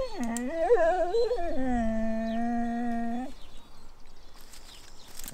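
Dog whining: one long cry that wavers up and down in pitch, then holds a steady note before stopping about three seconds in.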